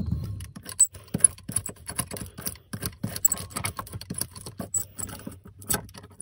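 Irregular small clicks and crackles of a ribbed metal laminating roller being worked over epoxy-wet fiberglass cloth and mat, pressing the laminate down, with a faint steady low hum underneath.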